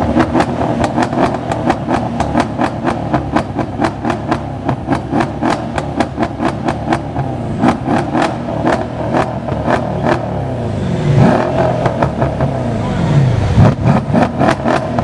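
High-performance car exhaust crackling and popping in a rapid, even series of sharp bangs, about four a second. Later the engine is blipped, revs rising and falling quickly several times, and the crackling comes back near the end.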